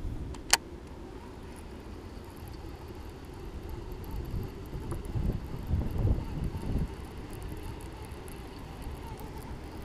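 Wind buffeting the microphone as a low rumble that swells in gusts about halfway through, with a single sharp click about half a second in as a hand works a baitcasting reel.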